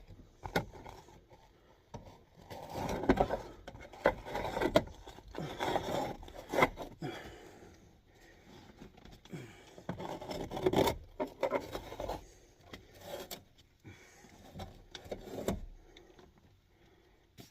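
Irregular scraping and rubbing with sharp metallic clicks and clinks: sheet-metal ductwork being handled, cut and fitted.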